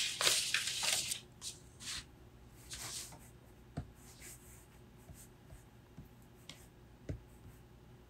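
Pen scratching on paper for about the first second, then a handful of faint taps and clicks against a desk.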